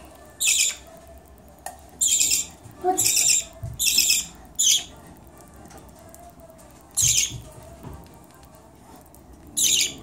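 Baby budgerigar giving harsh begging squawks as it is spoon-fed formula: seven short calls, a quick run of them in the first five seconds, then one at about seven seconds and one just before the end.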